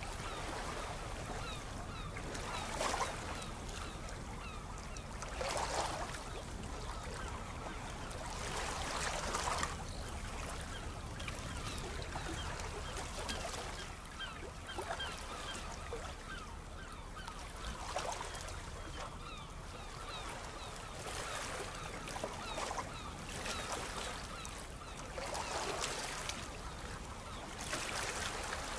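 Sea waves washing in, a louder surge every few seconds over a steady wash of water.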